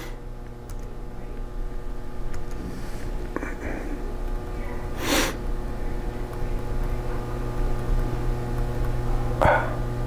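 Steady electrical hum of several even tones, with faint laptop key taps. A short, sharp breathy noise from the man comes about halfway through, and he murmurs briefly twice.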